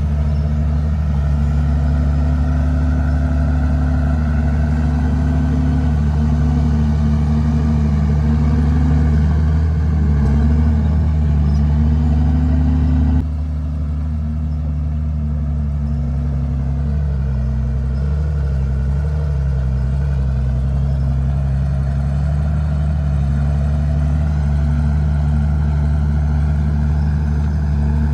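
Diesel engine of a Komatsu D51PX bulldozer running continuously, its pitch repeatedly rising and dipping as the load changes. About halfway through the sound drops suddenly a little in level.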